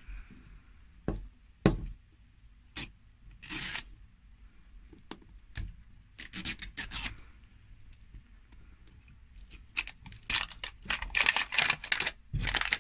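Hands peeling the sticker seal off a plastic LOL Surprise ball and opening it: scattered sharp clicks and tearing, then crinkling plastic wrapping that gets busier in the last few seconds.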